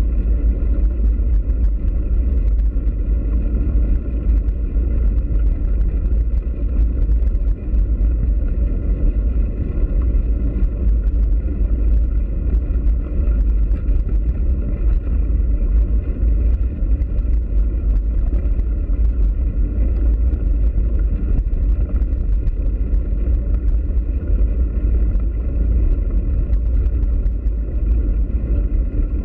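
Steady low rumble of wind on the microphone and bicycle tyres rolling over a dirt track while riding, with scattered faint ticks and rattles.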